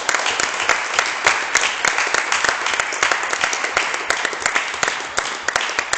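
Applause from a group of people: dense, steady hand-clapping.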